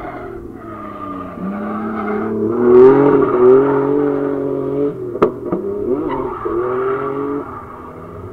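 Drift car's engine revving hard up and down as it slides through a corner, with tyre squeal, the pitch climbing to a peak about three seconds in; two sharp pops about five seconds in.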